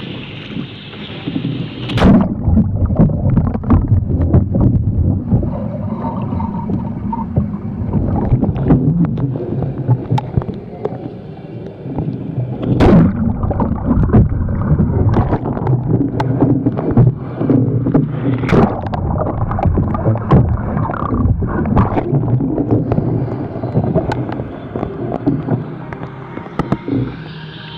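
Water splashing and gurgling around a deck-mounted camera as a Tahe Greenland kayak is rolled under and back up. It sounds muffled while the camera is submerged, with sharp splashes about two seconds in, near the middle and again a few seconds later.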